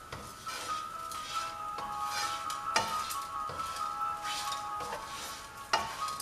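Slotted spatula stirring and scraping poha around a non-stick frying pan in repeated swishes, with sharp knocks of the spatula against the pan about three seconds in and near the end. Steady background music plays underneath.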